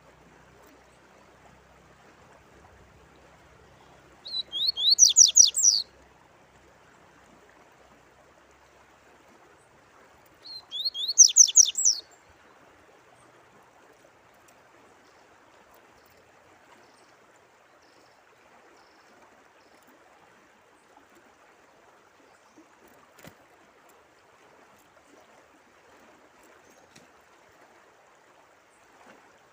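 A songbird singing two short phrases of rapid, falling high notes, about four and ten seconds in, over a faint steady trickle of running water.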